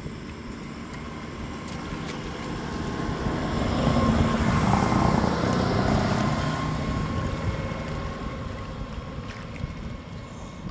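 Engine of a passing motorboat, growing louder to a peak about four to six seconds in, then fading away.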